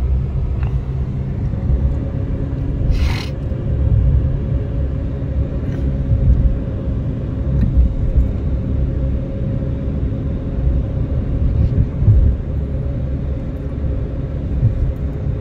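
Steady low rumble of a car's road and engine noise, heard from inside the moving car's cabin. A brief hiss sounds about three seconds in.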